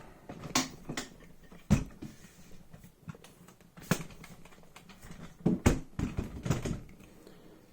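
Camera tripod being raised and adjusted: a string of irregular clicks and knocks from its leg locks and joints, the sharpest about two seconds in and again past the middle.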